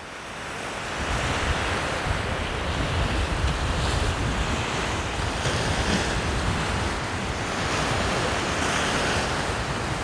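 Wind rushing and buffeting over the microphone, mixed with the wash of surf on the Sea of Azov shore. It swells about a second in.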